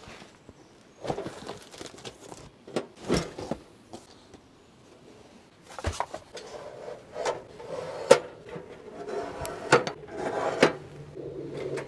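Portable metal wood-burning tent stove being unpacked and set up: scattered knocks and rustles, turning from about six seconds in into sharper metallic clinks and clanks with a short ring as the stove's parts and legs are handled.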